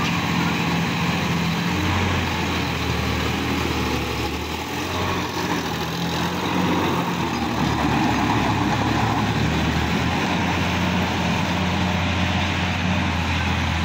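Sonalika DI-50 RX tractor's diesel engine running steadily under load while it drives a rear-mounted rotary tiller through dry soil, the tiller churning beneath it. The engine note shifts slightly a few times as it works.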